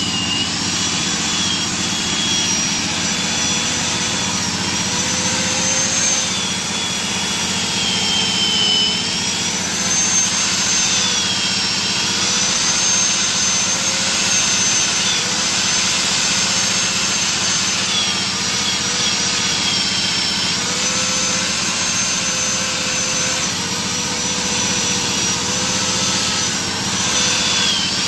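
Handheld corded electric power tool whining steadily as it cuts the valve seats of an aluminium cylinder head. Its pitch sags and recovers several times as the cutter bites.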